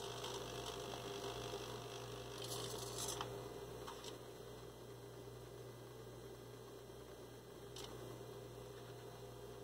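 Steady low electrical hum, with a brief faint whir about two and a half seconds in as the animatronic head's servos shift its head and eyes, and a couple of faint ticks later.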